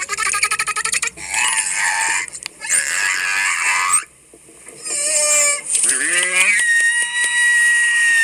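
A series of loud animal calls, presented as dinosaur vocalizations. It opens with a rapid rattling call, followed by two harsh, raspy calls, a short call, a call that rises in pitch, and finally a long, steady, high-pitched call of about a second and a half.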